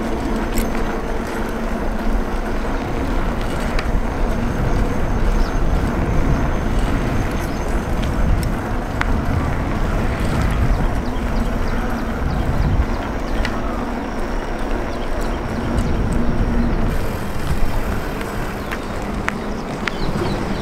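Wind buffeting the microphone while an Atlas Bravo bicycle is ridden at speed on a paved road, over steady tyre noise, with scattered small clicks and rattles from the bike.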